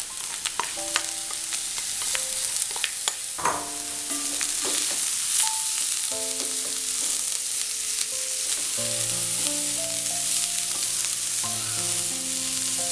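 Chopped red spinach frying in hot oil and spice in a metal kadai, sizzling as it is stirred, with the spatula clicking and scraping against the pan.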